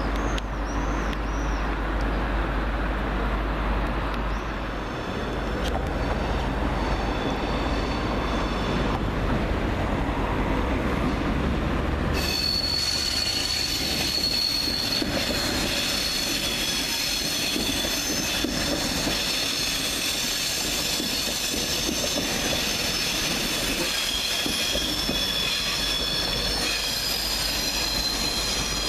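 Train rolling slowly over curved track and points, its wheels squealing in several high, steady tones over a rail rumble. The squeal turns louder and fuller about twelve seconds in.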